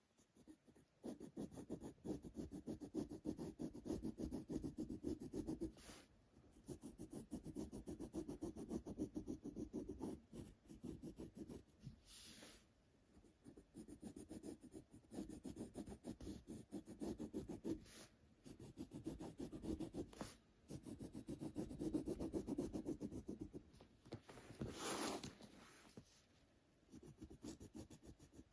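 Pencil lead scratching across paper while drawing straight lines, in strokes a few seconds long with short pauses between them, and two brief louder scuffs.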